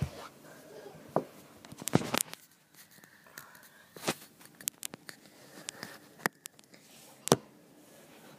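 Handling noise on a phone's microphone: scattered knocks, taps and scrapes as the phone is gripped, moved about and propped up. The loudest knocks come about two seconds in and a little after seven seconds.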